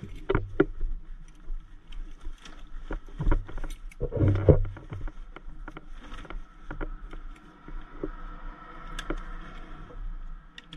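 Rustling, knocking and scraping as a large nylon medical bag is pushed into an ambulance compartment and held down with a strap, with scattered small clicks of the strap and its buckle; the loudest is a low thump about four seconds in.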